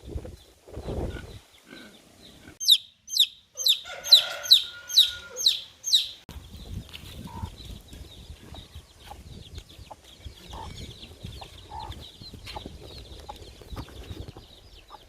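Chickens: a run of about eight loud, high, falling peeps over some three seconds, with lower clucking sounds under them partway through, then softer scuffling and faint peeping.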